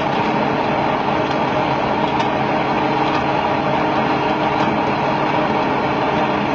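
Heavy wheeled tractor's engine running steadily under load while it drives a rear-mounted chain trencher cutting through soil, with a few faint clicks.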